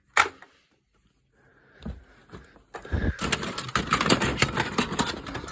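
Handling noise of fire alarm devices being moved: a click just after the start, then about three seconds of dense rattling and clattering.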